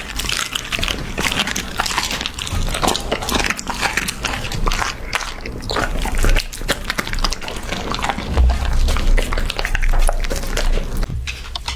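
A puppy chewing and biting raw beef close to the microphone: a continuous run of quick, close-set chewing and biting clicks.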